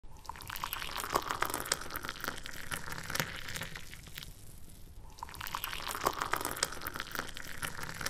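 Water splashing and trickling with many small drips, a steady rush with a brief lull a little past four seconds, after which the same stretch repeats, as in a looped recording.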